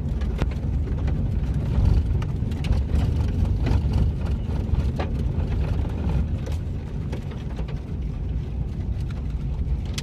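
Steady low rumble of a car driving, heard from inside the cabin: tyre and road noise with the engine underneath, and a few faint clicks.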